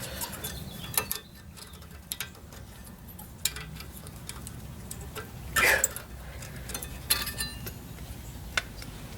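Small metal clicks and clinks of spring-steel brake pad hardware clips being worked out of and into a rear brake caliper bracket, with one louder, longer noise a little past halfway.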